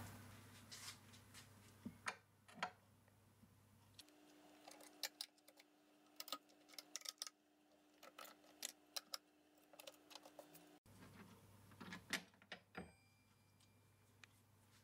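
Faint, scattered clicks and taps of hands working hold-down clamps on a CNC mill table: nuts and threaded rods being loosened and acrylic clamps and a milled gear plate being lifted off the aluminium bed, over a low steady hum.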